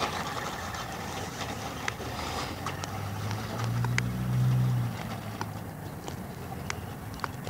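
A low motor hum swells and fades about midway, over wind noise on the microphone and scattered light clicks.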